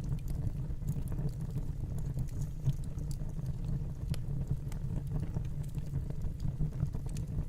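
Fireplace fire burning: a steady low rumble of flames with scattered sharp crackles and pops.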